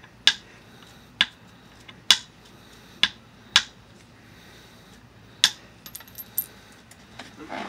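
Copper-tipped billet tapping the edge of a small stone flake: six sharp clicks about a second apart, then a few lighter ticks near the end. Small blending flakes are being knocked off to dress the edge.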